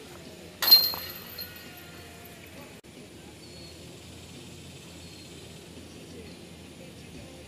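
A disc golf disc striking the hanging chains of a metal basket about a second in: a sudden metallic clash of chains that rings on and fades. Steady outdoor background for the rest.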